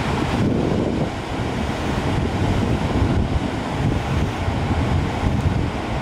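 Wind buffeting the microphone with a steady, gusty low rumble, over the wash of ocean surf breaking on the beach.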